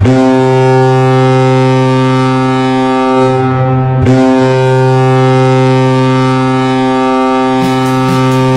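Colorado Avalanche arena goal horn blasting: a loud, deep, steady horn tone, sounded twice with a short break about four seconds in. A light rhythmic ticking starts under the horn near the end.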